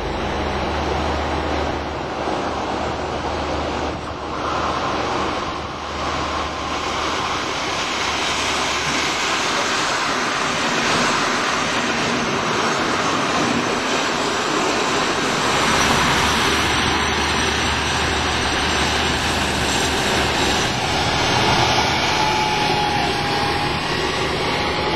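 Diesel railcar engines running at a station as an ALn 668 diesel railcar pulls in alongside a standing Stadler GTW diesel unit, a steady engine drone. A short high squeal near the end.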